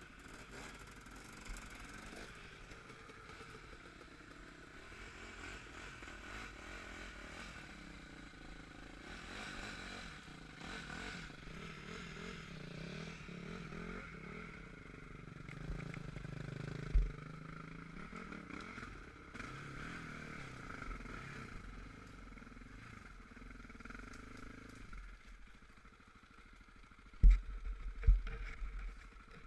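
Quad (ATV) engine running and revving up and down while riding over rough ground. The engine sound drops away about 25 seconds in, and a few loud thumps follow near the end.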